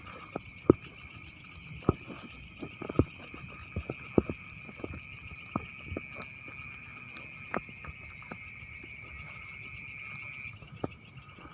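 Crickets and other insects trilling steadily in several high continuous tones, one of which stops near the end, with scattered sharp clicks and taps throughout.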